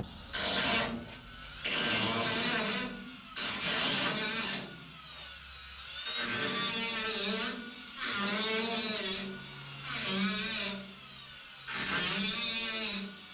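A handheld power tool run in about eight short bursts of a second or so each, its motor pitch wavering under load as it cuts into the sheet-metal roof.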